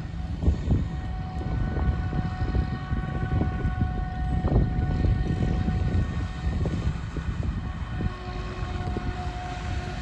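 Forage harvester chopping maize at a distance, a steady machine drone with a faint whine held on a few steady pitches, over an uneven low rumble.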